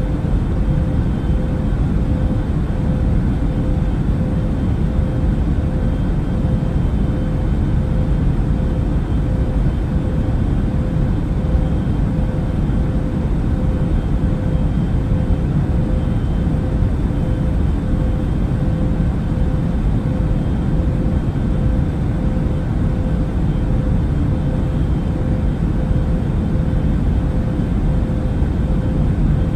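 Airplane during landing: a steady, deep rumble of engine and airflow noise with a faint constant hum, unchanging throughout.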